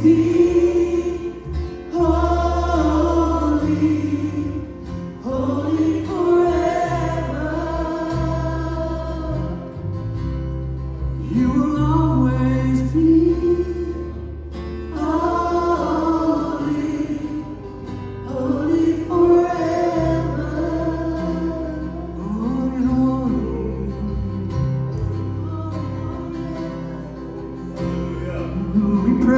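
Gospel singing by a choir or group of singers with instrumental backing and a steady bass line, in phrases of a few seconds each.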